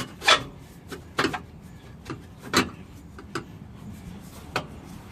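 Irregular metal knocks and clunks, about five, as a 2.5-inch steel exhaust pipe is worked into place on the exhaust.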